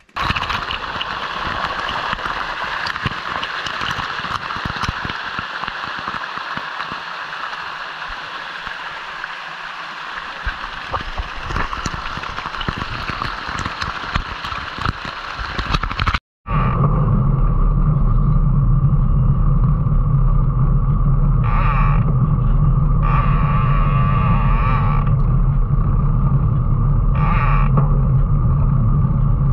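Stream water rushing and splashing over rocks right at the microphone, a dense crackling hiss. About sixteen seconds in it cuts abruptly to a steady low rumble of wind and tyre noise from a camera mounted by a mountain bike's front wheel rolling on asphalt, with three short bursts of brighter hiss.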